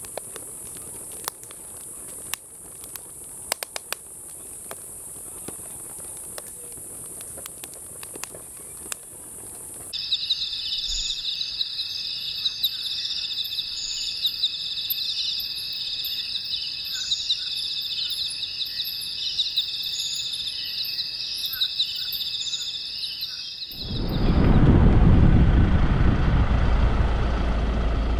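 Night insects trilling: a thin, high hiss at first, then from about ten seconds a louder, pulsing chorus in several tones. Near the end a vehicle's engine and road rumble come in and drown it out.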